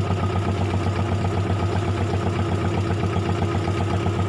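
A wooden fishing boat's engine idling steadily, a low hum with an even, rapid pulse.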